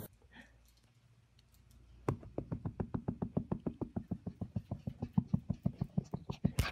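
Corgi puppy's paws pattering quickly on a hardwood floor as it runs up, about eight to ten steps a second, growing louder as it nears. The steps start about two seconds in, after near silence.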